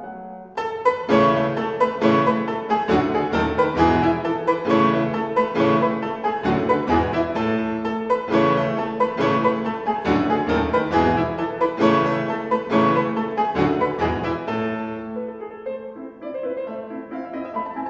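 Background instrumental music: a quick, even run of notes that thins out and softens near the end.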